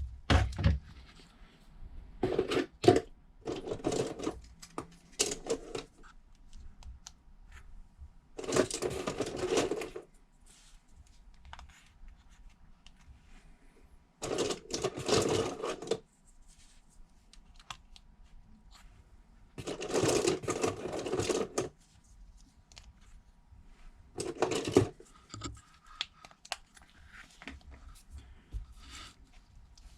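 Seven separate bursts of rattling, clicking handling noise, each lasting up to about two seconds, with quiet gaps between them.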